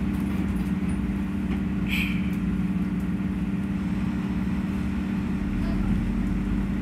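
Steady hum of a SEPTA Broad Street Line subway car standing at a station, with a brief high-pitched chirp about two seconds in.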